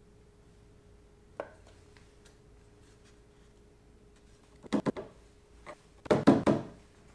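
A block of 2x6 pine board knocked into place against a wooden jig and a bar clamp set against it: a small click early, a few wooden knocks about five seconds in, and a louder cluster of knocks and clunks near the end, over a faint steady hum.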